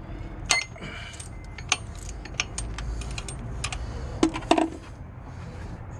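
Scattered sharp metallic clicks and clinks of a wrench on the water pump's bolts, as the bolts are loosened; one clink about half a second in rings briefly.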